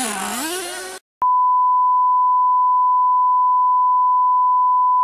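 A steady single-pitch test beep, the reference tone played with colour bars, starting just over a second in after a brief drop to silence. Before the cut, an RC monster truck's motor whines briefly, its pitch dipping and then rising.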